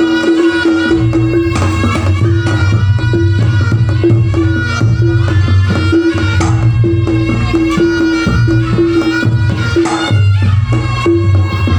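Javanese gamelan ensemble playing a langgam, with kendang drum strokes over sustained melody notes and a steady bass.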